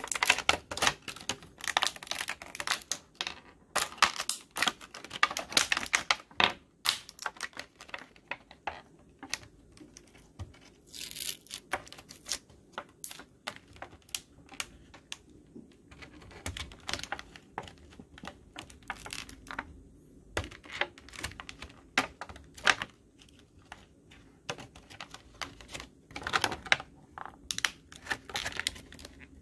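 A thin clear plastic bag being handled and pulled open: an irregular run of sharp crinkles and crackles, thickest in the first few seconds and again near the end.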